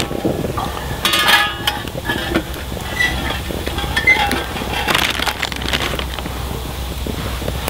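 Metal cookware and utensils clinking and scraping, with a few short metallic rings among the clatter.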